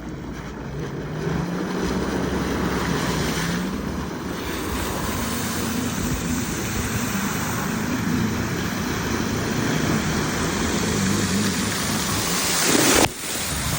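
Jet ski engine running under throttle with reverse held, its note wavering while the water jet throws up a hissing spray. Near the end it swells to its loudest and then cuts off sharply.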